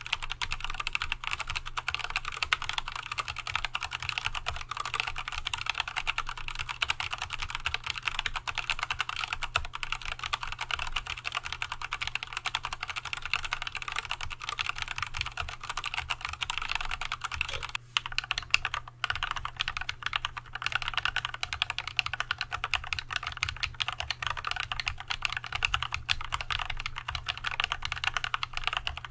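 Fast, continuous typing on an Archon AK87 mechanical keyboard with Tealios V2 linear switches, first with the switches unlubricated. After a brief break about eighteen seconds in, the same switches are lubed with Christo 129.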